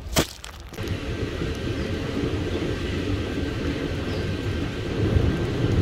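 Passenger train running, a steady rumble that starts about a second in after a brief click.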